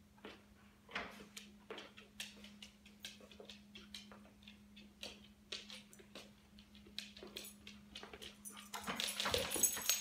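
Dog claws clicking and tapping irregularly on a laminate floor as the dogs shift and walk about, over a steady low hum. The tapping grows louder and busier near the end.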